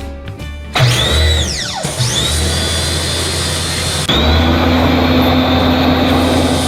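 High-pressure washer running and spraying: it starts suddenly about a second in and surges louder again about four seconds in, with a steady deep hum under a hiss. Background music plays just before it starts.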